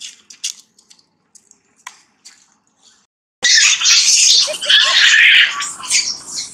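Faint scattered rustles and ticks, then about three and a half seconds in, long-tailed macaques break into loud, harsh screaming that lasts about two seconds and fades.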